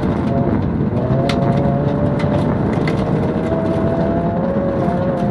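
Ford Focus V1600 rally car's engine running hard under load, heard from inside the cabin, its tone held fairly steady. Scattered sharp ticks ride over it, from gravel and ice hitting the car.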